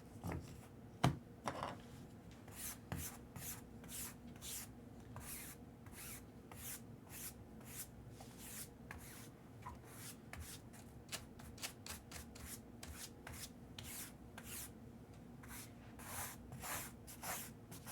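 Trading cards being handled and sorted by hand: a long run of soft swishes as cards slide over one another, with a couple of sharper taps about a second in.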